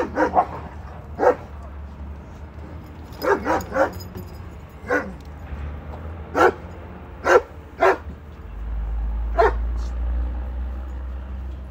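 A dog barking: about ten short single barks at irregular intervals, some in quick pairs or threes. A low rumble comes in under the last few seconds.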